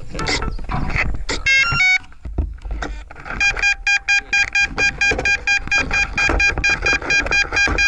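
Handling knocks on an RC helicopter, then a quick run of electronic tones at stepping pitches from its onboard electronics. From about three seconds in, rapid steady electronic beeping follows, about six beeps a second.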